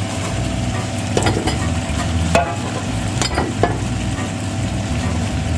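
Food sizzling in a hot pot with a steady hiss while it is stirred, with a few sharp knocks and scrapes of the utensil against the pot between about one and four seconds in.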